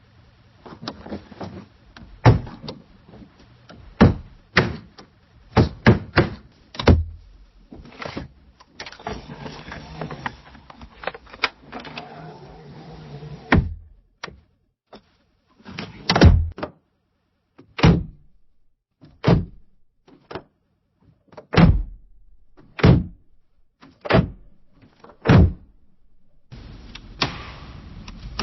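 Windows being opened and shut: a run of sharp knocks and thuds from the frames and latches, some in quick pairs, with a few seconds of scraping as a window slides, from about eight seconds in.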